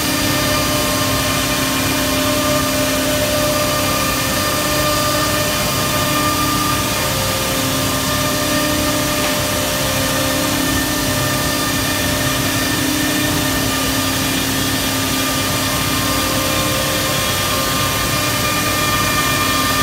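AXYZ 5018 CNC router running a cut through a particleboard panel: a steady loud rushing noise with a spindle whine in several steady tones, the pitch shifting slightly now and then as the head travels.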